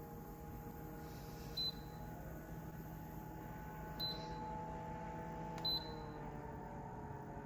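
Portable evaporative air cooler fan running with a steady hum while its control panel gives three short high beeps, about two seconds apart. Just after the last beep the motor's hum shifts pitch as the setting changes.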